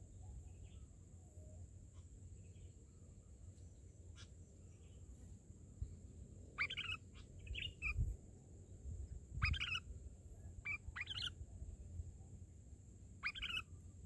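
Short chirping bird calls come in several brief phrases, mostly in the second half. Under them run a steady high hiss and a low rumble.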